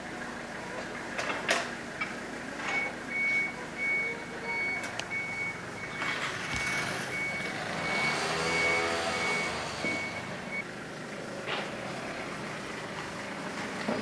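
A vehicle's reversing alarm sounds a steady series of short, high, evenly spaced beeps that stop about ten seconds in, while a vehicle engine runs and passes close, loudest a little past the middle. A few sharp clicks occur, the clearest near the start and near the end.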